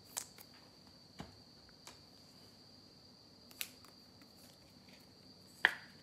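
Trading cards being handled: a few soft clicks and taps at irregular intervals, the sharpest near the end, over a faint steady high-pitched whine.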